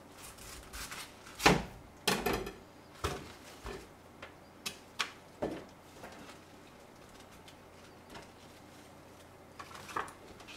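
Crisp cracks and crunches of a napa cabbage as its leaves are snapped off and cut on a wooden cutting board, about a dozen sharp sounds in the first six seconds, the loudest about one and a half seconds in, then a quiet stretch and a few more near the end.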